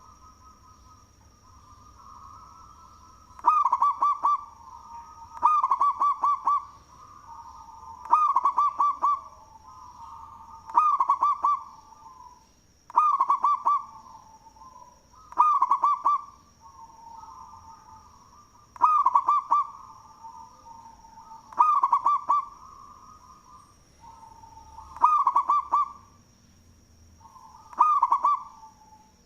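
Local zebra dove (perkutut) cooing loudly: its song phrase, a quick run of bubbling coos, repeated about every two and a half to three seconds, about ten times, with fainter cooing between phrases.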